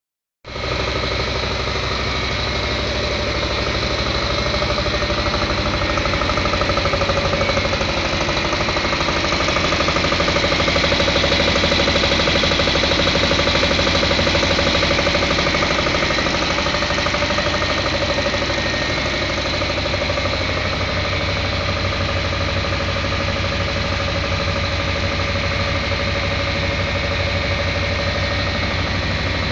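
HCCI test engine running steadily on raw biomass-gasifier producer gas: an even, rapid firing pulse with a few steady whining tones over it, swelling a little in loudness through the middle.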